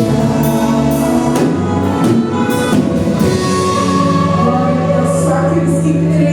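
Gospel worship music: singing over a band with drums and cymbals.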